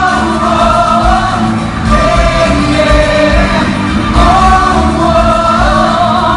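Loud amplified live pop music with a heavy beat and a singing voice, picked up from the audience in a large hall.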